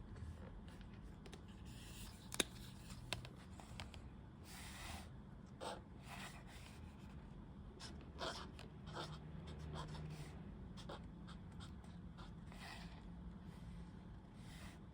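Paperback journal being handled and flexed open: faint paper rustling and scattered light clicks, with one sharp click about two and a half seconds in.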